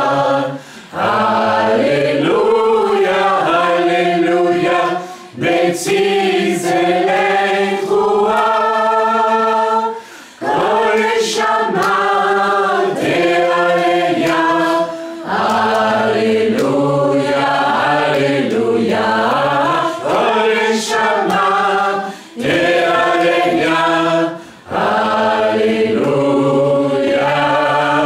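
A group of voices singing together, a slow worship chant in long held notes, with a short break every few seconds.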